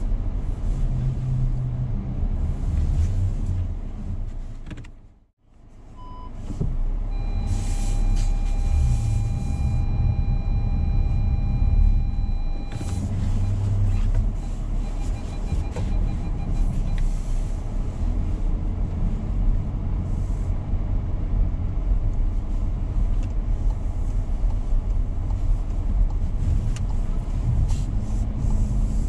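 Car on the move: steady low rumble of engine and road noise. About five seconds in the sound fades out briefly and comes back, and then a steady electronic beep tone sounds for about six seconds, followed by a short run of pulsed beeps.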